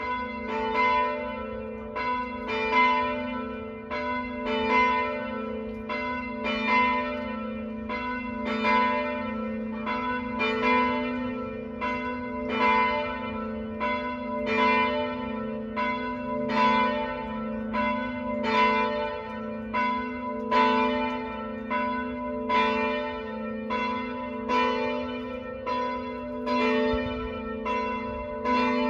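A church's full ring of tower bells sounding all together in a continuous peal, the strokes overlapping, with the loudness swelling and falling about every two seconds.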